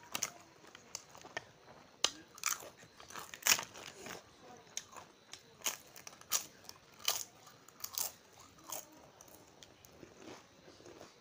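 Close-up eating sounds: a person biting and chewing crisp food, with sharp, irregular crunches about every half second and a louder crunch about three and a half seconds in.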